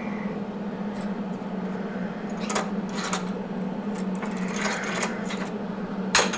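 A steady electrical hum from workshop equipment, with a few light metallic clicks and a sharp metal clatter near the end as the weld-built-up knife part and tools are handled.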